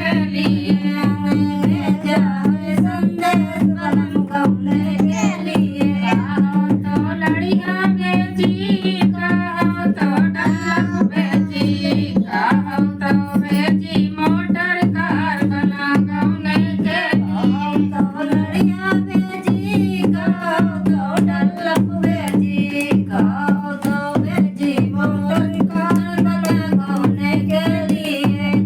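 Dehati folk song music: a steady low drone under a quick, even drum rhythm, with a wavering, ornamented melodic lead on top.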